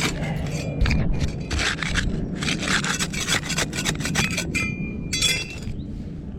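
Roof shingles being pried up and lifted, a tool scraping and rubbing under them in repeated strokes, with a short squeak about three-quarters of the way through.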